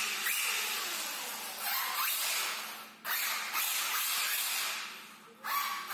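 Radio-controlled Mugen MBX5 1/8-scale buggy, converted to 14.8 V electric, driving in repeated throttle bursts on a smooth concrete floor. Each burst brings a sudden rise in motor whine and drivetrain and tyre hiss that then fades off, about five times.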